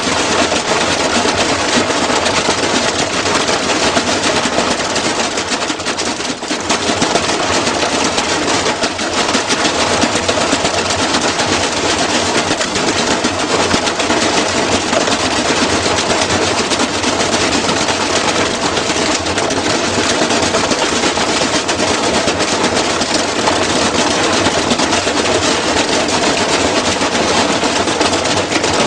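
Washing machine running out of balance and tearing itself apart, a loud continuous clatter of rapid banging and rattling.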